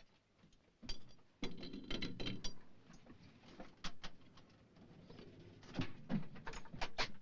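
Metal clanks and sharp clicks as the breech of a Chieftain tank's 120 mm gun is loaded and worked by hand, ahead of firing. The clicks come irregularly, with a cluster of the loudest ones near the end.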